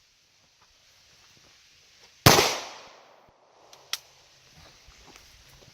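A single 9mm gunshot about two seconds in, its report trailing off over about half a second, fired at a soft-armour backpack; a short sharp click follows a moment later.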